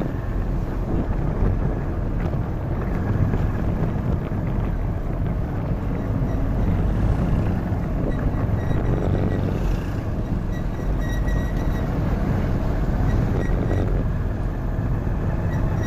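Steady motorcycle engine and road noise while riding in traffic, with wind buffeting the microphone.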